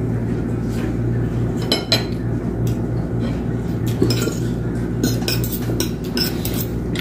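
Metal cutlery clinking and scraping on plates as people eat, in scattered light clicks that bunch together a couple of seconds in and again near the end. A steady low hum runs underneath.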